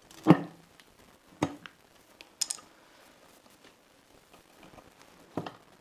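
Tyre levers prying a car tyre's bead over the wheel rim: four separate knocks and scrapes spread over several seconds, the first one the loudest.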